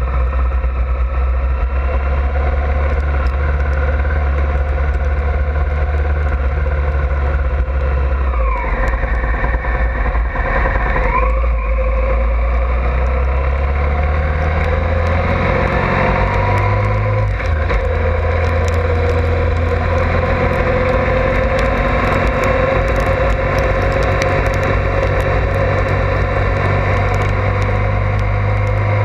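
Honda ST1100 Pan European touring motorcycle's V4 engine running steadily under way, with road noise. The engine note drops and then climbs again about a third of the way in, and shifts once more a little past halfway.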